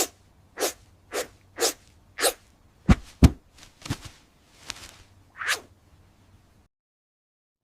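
A cat sneezing over and over, short sharp sneezes about every half second, then a few more spaced out. Two sharp, louder knocks come about three seconds in.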